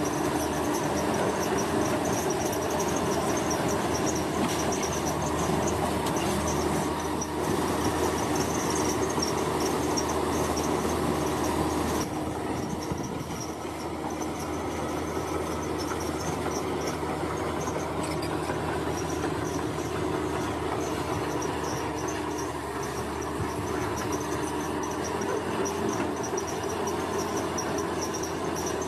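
Komatsu bulldozer's diesel engine running steadily under work, a little quieter from about twelve seconds in, with insects chirping in a steady high pulse over it.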